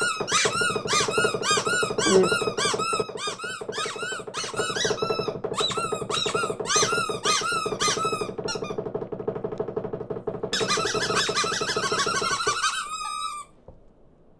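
Cartoon birds chattering: rapid, overlapping high squeaky chirps over a steady low hum. The chirping pauses about nine seconds in, resumes briefly, and stops about a second before the end.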